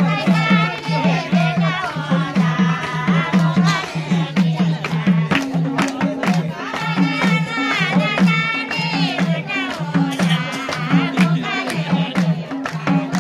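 Live Nepali dohori folk singing over a steady, driving beat of madal hand drums.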